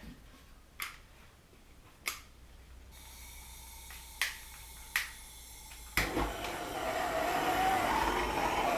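A few light clicks, then a heating tool clicks on about six seconds in and runs steadily, its noise building for a couple of seconds. It is heating a pressed-on harmonic balancer to loosen it so it will come off the crankshaft.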